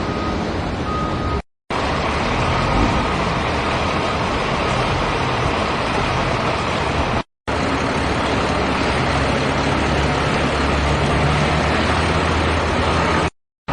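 Excavator's diesel engine running steadily as it works. The sound drops out briefly to silence three times: about a second and a half in, around the middle, and near the end.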